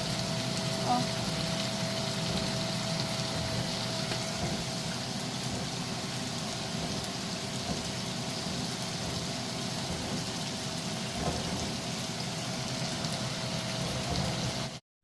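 Chicken curry sizzling and simmering in a pan as it finishes cooking: a steady crackling hiss with a faint steady hum underneath.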